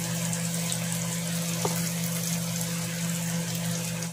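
Garlic-butter shrimp frying in a nonstick pan: a steady sizzle, with a low steady hum underneath.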